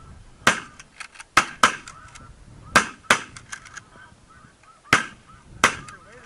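Shotgun volley at incoming snow geese: about seven loud shots in six seconds, some in quick pairs, with fainter shots in between. Snow goose calls carry on underneath.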